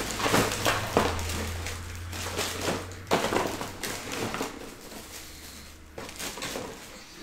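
Panini Optic and Prizm trading-card boxes and packs being ripped open: wrapping crinkling and tearing in a run of short, irregular rustles, over a low steady hum.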